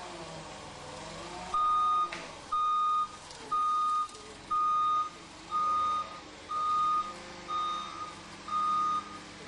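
Electronic warning beeper sounding a steady series of single high beeps, about one a second and each about half a second long, starting about one and a half seconds in, the kind of alarm that sounds while a machine or hoist is moving.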